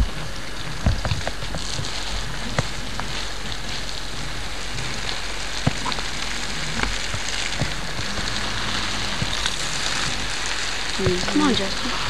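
Steady hiss with scattered small clicks and crackles, and a brief murmur of a voice near the end.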